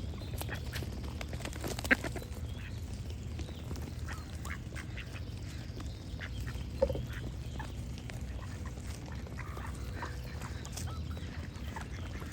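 Ducks quacking now and then amid small birds singing, over a steady low background noise. Two calls stand out as louder, about two seconds in and about seven seconds in.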